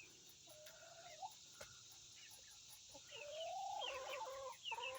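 Chickens clucking and calling softly while they feed. There is a drawn-out call about half a second in, then a rising call and a quick run of clucks from about three seconds on, louder near the end.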